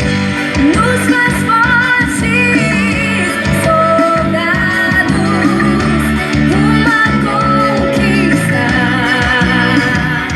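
Forró gospel song: a voice singing over guitar, bass and a steady beat.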